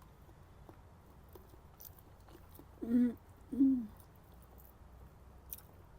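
A woman chewing food with faint, scattered mouth clicks, and two short hummed "mm" sounds about three seconds in, the second falling in pitch.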